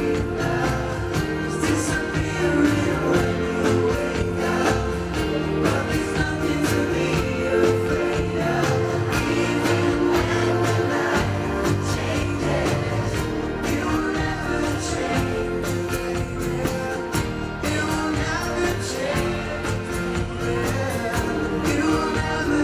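Live pop band playing a song with lead and group vocals over drums, amplified through a PA.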